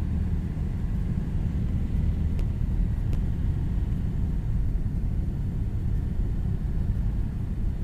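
Steady low rumble inside a Cessna 172's cabin during a power-off glide: the engine throttled back to idle for a simulated engine failure, with the propeller windmilling and air rushing past. Two faint ticks come a few seconds in.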